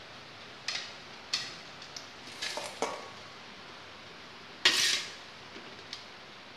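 A large kitchen knife cutting steamed tapioca into strips on a stainless steel plate, the blade knocking and scraping against the metal in a handful of short, irregular clatters. The loudest, a brief scrape, comes about two-thirds of the way through.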